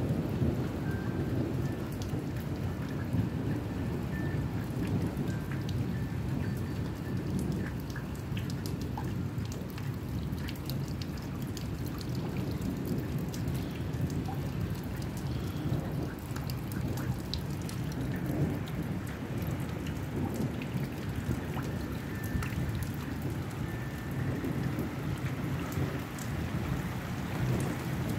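Steady rain during a thunderstorm, with many single drops ticking close by over a continuous low rumble of thunder.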